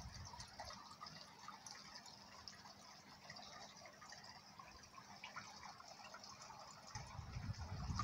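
Faint trickling and dripping of pond water. Near the end a low rumble of wind on the microphone starts to build.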